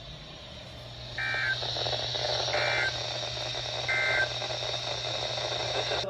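Three short electronic alert beeps, about a second and a half apart, over a steady high-pitched whine and a low hum.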